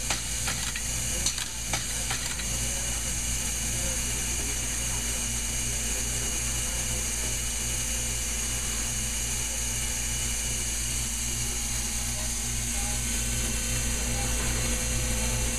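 Automated plant-bedding machinery running: a steady mechanical hum with a regular low pulsing beat, and a few sharp clicks in the first two seconds.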